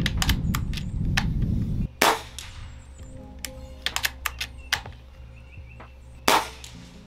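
Two shots from a .25-calibre Benjamin Marauder pre-charged pneumatic air rifle, about four seconds apart, each a short sharp report. Between them come small metallic clicks of the bolt being worked to chamber the next pellet from the magazine. Background music plays underneath.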